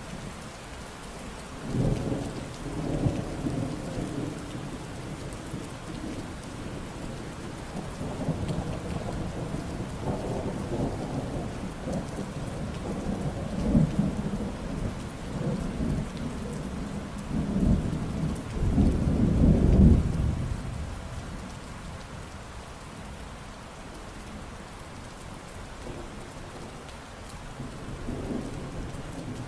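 Steady rain falling, with several rolls of thunder rumbling over it. The loudest roll comes a little past the middle, and a faint one comes near the end.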